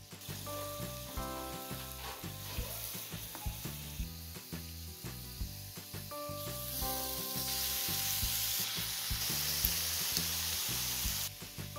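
Marinated pork slices sizzling on the grill ring of a mookata pan, clearest from about seven seconds in and cutting off abruptly near the end. Background music with a steady beat plays throughout.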